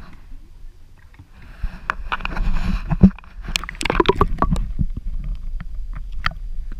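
Water sloshing and splashing around a camera housing as it is dipped below the surface of shallow water, with a loud knock about three seconds in followed by a dense run of sharp clicks and crackles.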